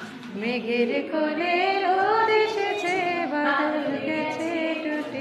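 A group of young children and a woman singing a chanted song together.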